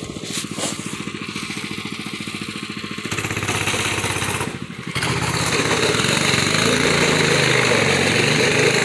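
Small go-kart engine running with a rapid, even putter, then louder and busier from about five seconds in as the kart is driven across the yard.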